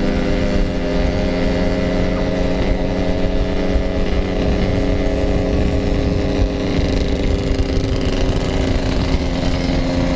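Yamaha RX King two-stroke single-cylinder motorcycle engine running at a steady pitch while riding, with wind rumble on the microphone.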